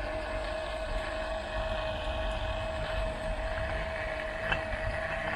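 Small electric oil-extractor pump running steadily with a constant whine, sucking used black engine oil out of the diesel engine through a hose into a canister.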